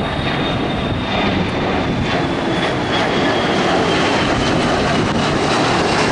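Boeing 737 jetliner's turbofan engines at climb thrust just after takeoff: a steady jet roar with a thin high whine on top that slides slowly lower as the plane climbs away.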